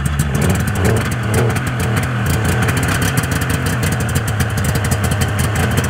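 1994 Polaris Indy XLT 600 snowmobile's three-cylinder two-stroke engine running steadily, puffing thick exhaust smoke.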